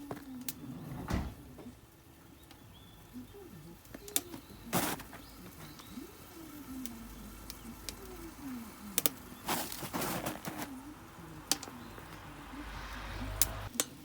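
Wood fire crackling, with a dozen or so sharp pops and snaps at irregular intervals.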